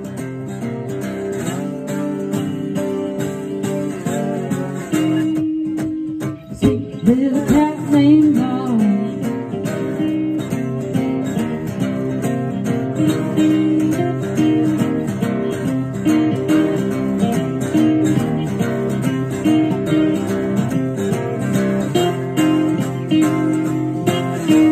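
Live acoustic music: two acoustic guitars strummed with a woman singing over them. About five seconds in she holds one note, then sings a phrase that slides up and down in pitch.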